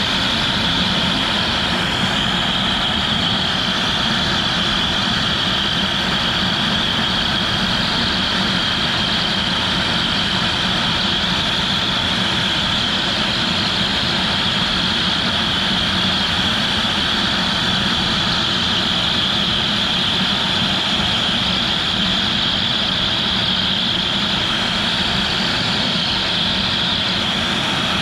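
CNC router spindle running steadily with a constant high whine while a 45° V-bit carves PVC.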